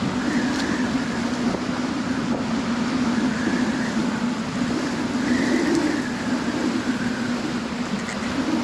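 Strong, gusty wind howling: a steady rush with a low moan and a higher whistle that waver up and down in pitch.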